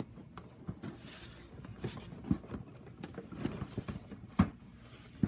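Handling noise: scattered light knocks and rustles, with a sharper knock about two seconds in and the loudest one about four and a half seconds in.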